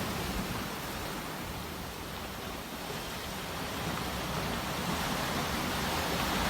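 Sea waves washing, a steady rushing hiss that eases slightly in the middle and swells again toward the end.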